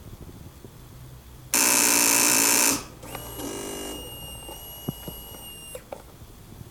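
A 2006 Kawasaki ZX-6R that won't start makes a loud, harsh rasp lasting just over a second, then a steady high whine for nearly three seconds. This is the strange rasping the owner hears alongside the FI warning light.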